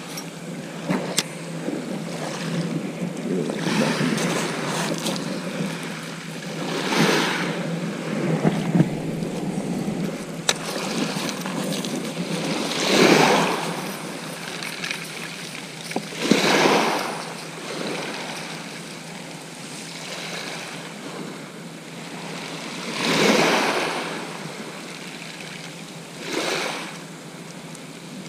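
Small waves breaking and washing up a shingle beach. They come as about six separate hissing surges a few seconds apart.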